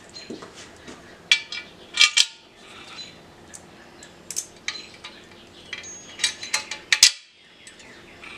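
Steel parts clinking and clanking together as a welded steel bracket frame is handled and fitted against the steel frame of a hydraulic press: a string of sharp metallic knocks with a brief ring, loudest about two seconds in and again near the end.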